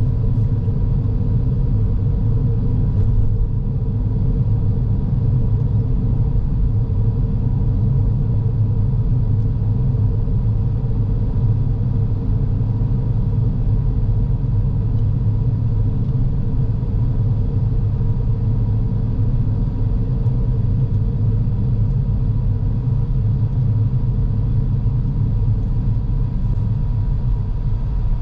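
Car driving on a road: a steady low rumble of tyres and engine, with a faint steady tone above it.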